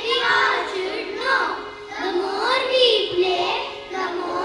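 A chorus of young children singing a poem together in unison, the voices rising and falling in a simple tune.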